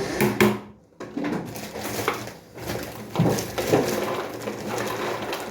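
Snacks rattling and clinking as they are poured into a dish, with rustling and the dish being handled.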